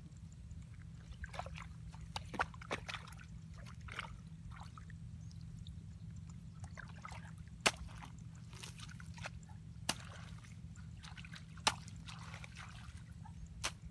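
A hoe chopping into wet mud and grass: irregular wet, squelching strikes, the sharpest about two seconds apart in the second half, over a low steady hum.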